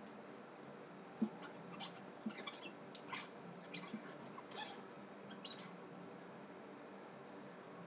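Faint, irregular short high chirps and clicks from small animals, with one louder click about a second in.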